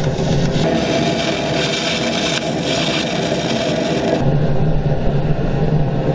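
MIG welder arc crackling steadily for about four seconds, then cutting off and giving way to the steady low drone of the diesel-fired melting furnace's burner.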